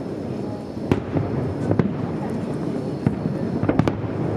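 Aerial firework shells bursting: sharp bangs at irregular intervals, with a cluster of several in quick succession near the end, over a continuous low noise between them.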